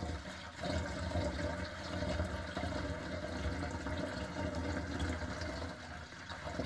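Maple sap being poured from a one-gallon plastic jug into a five-gallon plastic container, a steady stream of liquid splashing into it.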